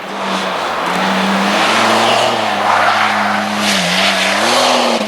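Touring race car engine running hard at high revs on a hillclimb course, with a loud rasping exhaust. The pitch dips once near the end and climbs again.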